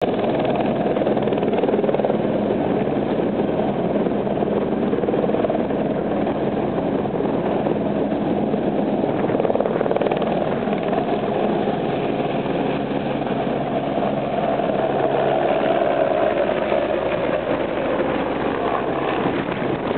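Aerospatiale AS355 Twinstar twin-turbine helicopter lifting off and climbing away close overhead: steady, loud rotor and turbine noise.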